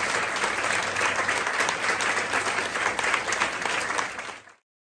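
Audience applauding, a dense patter of many hands clapping, which fades out quickly near the end.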